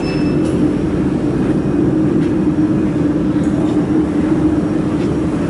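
Steady low mechanical hum of a powered-up laser welding machine, with a faint click about half a second in.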